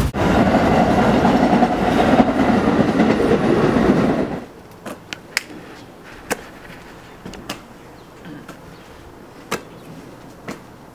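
A passing train, a loud steady rumble that cuts off about four seconds in. Then a quiet yard with a few sharp knocks as a basketball is thrown and caught.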